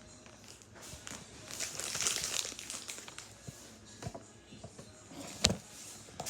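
Handling noise: scattered light clicks and rustling as objects are moved by hand, with one sharp knock about five and a half seconds in.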